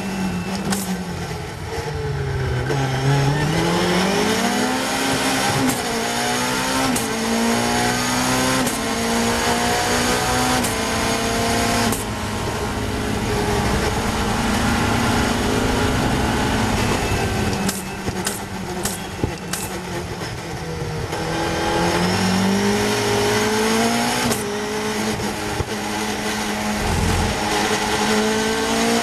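Caterham Seven's Cosworth 2.4-litre four-cylinder engine at racing pace, heard from the open cockpit. The note drops as the car brakes at the start, then climbs through several upshifts and holds high. It falls away again under braking a little past the middle, then climbs once more near the end.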